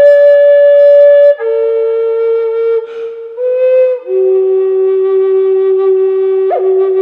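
Native American style flute playing a slow solo melody of held notes that step downward and settle into a long low note, with a short breathy break between phrases about three seconds in and a quick upward flick near the end.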